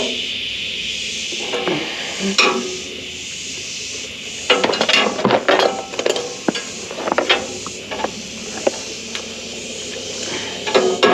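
Metal clinking and clanking: a run of sharp knocks and clinks about halfway through, more near the end, over a steady high hiss that fades in the first few seconds.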